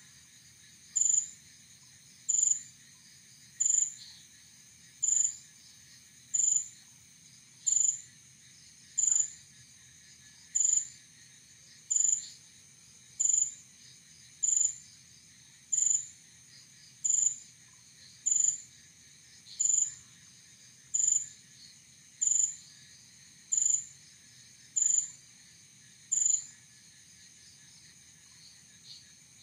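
A night creature's sharp call repeated at an even pace, about one every second and a third, some twenty times, stopping a few seconds before the end, over a steady high-pitched night chorus.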